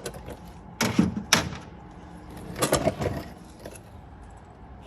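Workshop handling noise: a few sharp clacks and rattles, about one second in and again near three seconds, from tools or parts being moved about under the car.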